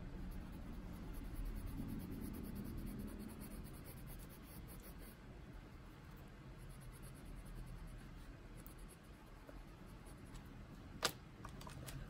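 Faint scratching of a Prismacolor colored pencil shading on coloring-book paper, with one sharp click about eleven seconds in.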